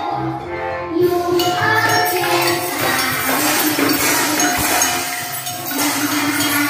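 A group of young children shaking and tapping small hand percussion instruments together: jingles, shakers and wooden sticks, starting about a second in, with a sung or played melody underneath.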